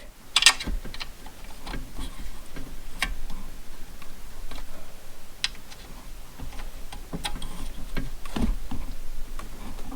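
Small Allen-head bolts being snugged up with a hex key into a string trimmer's plastic housing: a run of irregular light clicks and ticks as the key turns and is reset.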